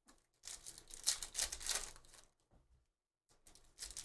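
Trading card packs and cards being handled by hand: foil pack wrappers crinkling and cards rustling and sliding against each other in short irregular spurts, with a brief pause about three seconds in.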